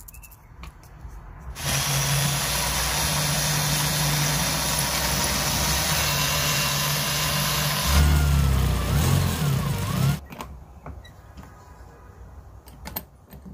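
Corded electric drill starts about two seconds in and runs steadily, drilling into a wooden lure blank. Near the end it gets louder and its pitch wavers as the bit bites, then it stops suddenly.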